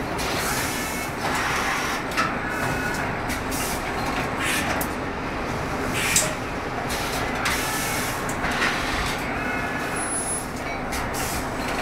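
Pneumatic bag-filling machine running: a steady mechanical din with short hisses of compressed air from its pneumatic cylinders every second or two, the sharpest one about six seconds in.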